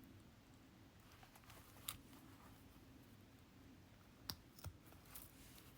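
Near silence broken by a few faint small clicks of jewelry pliers and a metal clasp being handled: one about two seconds in and two more close together around four and a half seconds in.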